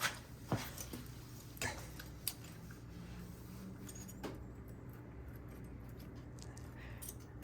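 Faint metal clicks and scrapes of a feeler gauge being slid between the rocker arm and the exhaust valve stem of a Honda EU3000is engine to check valve lash: five or so sharp ticks over the first four and a half seconds, over a low steady hum.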